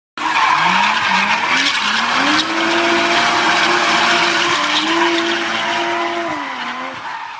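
Car engine revving up through a few quick rising sweeps, then holding a steady high note, under loud tyre screeching as the car skids. It starts suddenly and fades toward the end.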